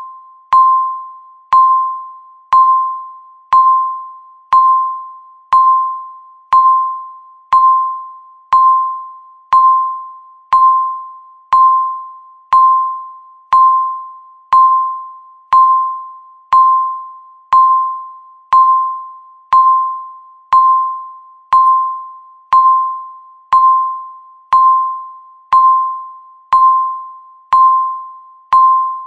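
Countdown timer beeping once a second, one beep for each second left. Each beep is the same single pitch, starts sharply and fades away before the next.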